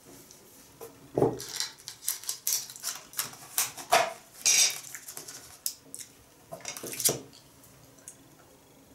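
Cutlery and dishes being handled: a quick run of clinks, taps and short scrapes, mostly between about one and seven seconds in.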